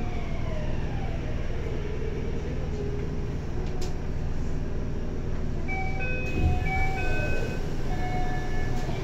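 Toei 6300 series subway train running with a steady rumble while the electric whine of its traction drive falls in pitch over the first few seconds as the train slows. In the last few seconds a short electronic chime of stepped tones plays over the rumble.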